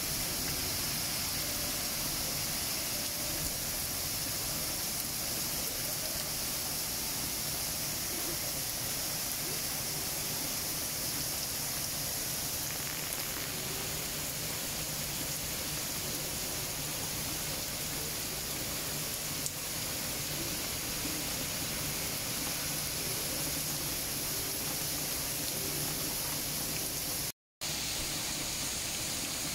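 Heavy rain pouring down steadily, an even rushing hiss of a downpour on pavement and trees. The sound cuts out for a moment near the end.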